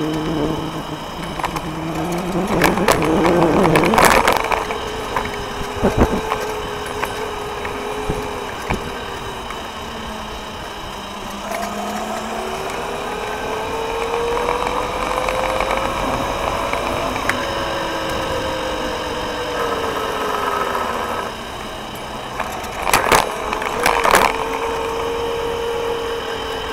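Electric scooter riding, heard from low on the deck: a motor whine that rises and falls slowly with speed over a steady road and tyre noise. A few sharp knocks and rattles come in clusters, once early on and again near the end.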